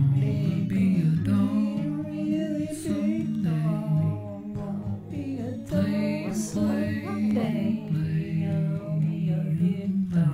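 Background music: an acoustic song in a passage without lyrics, its melody gliding over a steady accompaniment.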